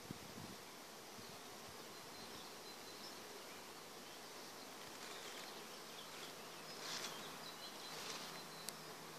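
Honey bees foraging in flowering black locust trees, a steady faint buzzing hum of many bees.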